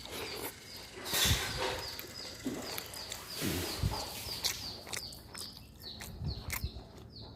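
Small birds chirping over and over, short falling chirps a few times a second, with scattered clicks and a few soft knocks among them.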